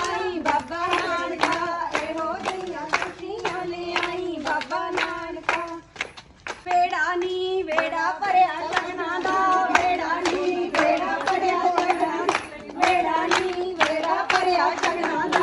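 Women singing a Punjabi folk song for giddha while clapping hands in a steady rhythm, about three claps a second. The clapping and singing break off briefly about six seconds in, then resume.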